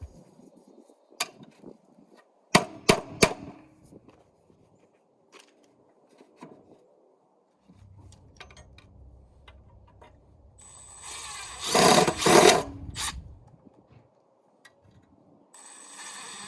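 A power drill driving screws through a metal joist hanger into a wooden joist, the motor running under load for about three seconds late on, with a quieter run-up before it. Earlier come several sharp knocks and clicks.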